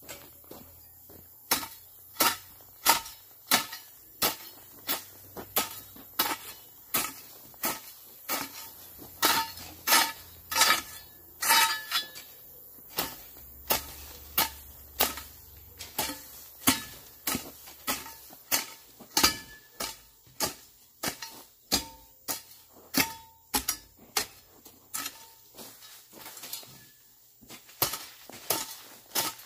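Hand hoe chopping into the ground to clear weeds: a steady series of sharp strikes, about three every two seconds, each blade strike giving a short metallic ring.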